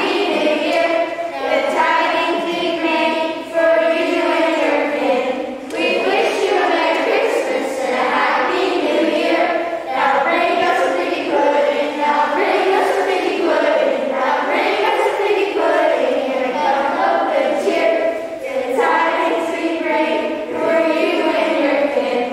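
A group of children singing together as a choir, sung in phrases with short breaks between lines.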